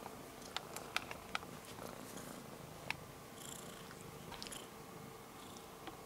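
Domestic kitten purring steadily while being stroked, with several sharp clicks scattered through the purr.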